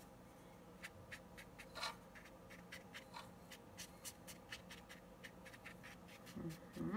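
Paintbrush dabbing and stroking watercolour paper: quick, faint scratchy strokes, several a second, starting about a second in, with one louder brushing sound just before the end.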